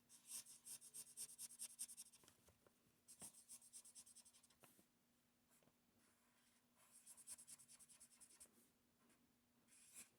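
Faint scratching of drawing strokes on paper, in three short spells of quick strokes.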